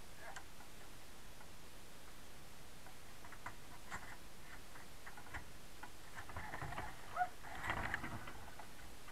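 Faint scattered clicks and light knocks over a steady hiss, growing denser and louder between about six and eight seconds in: handling noise as the bobsleigh crew move about and climb out of the stopped sled.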